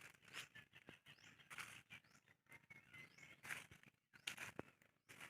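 Faint irregular rustling and crunching of footsteps through dry leaf litter and brush, with a few faint bird chirps in the background.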